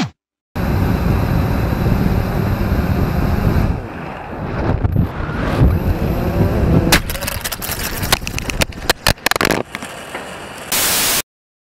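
Wind rumbling on the microphone, then a run of sharp knocks and clatters about seven seconds in, ending with a short burst of static before the sound cuts out.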